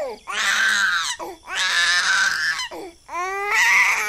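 Baby crying loudly in three long wails, the last one rising in pitch.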